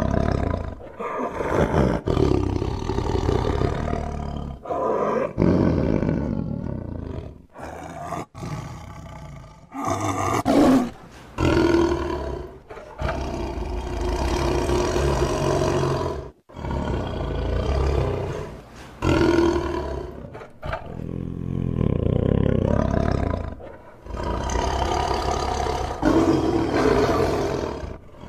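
Tiger roaring and growling: a run of loud roars one after another, each a second or a few seconds long, with short breaks between them and several abrupt cuts.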